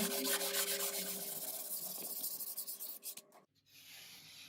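Sandpaper rubbing back and forth over a plasterboard patch in quick, even strokes, smoothing the repair; the sanding stops abruptly about three and a half seconds in, followed by a brief faint hiss.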